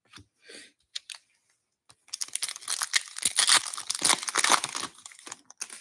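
Foil wrapper of an Upper Deck hockey card pack being torn open and crinkled by hand: a few light ticks, then a dense crackle lasting about three seconds from about two seconds in.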